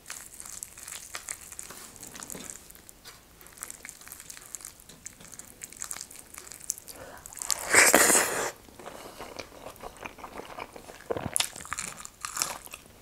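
Close-miked eating by hand: fingers mixing rice and curry, with chewing and small crackly clicks, and one loud crunchy bite about eight seconds in.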